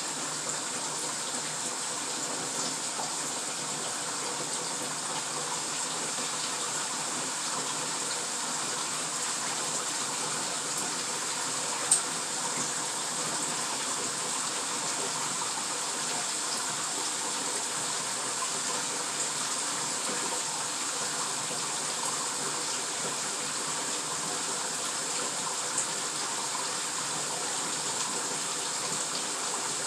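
Bathtub tap running steadily, a constant rush of water as the tub fills. One sharp click about twelve seconds in, and a fainter one near the end.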